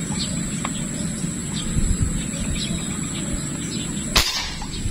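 An air rifle rigged for fishing, with a line reel at the muzzle, fires once about four seconds in: a single sharp crack. Birds and insects chirp steadily behind it.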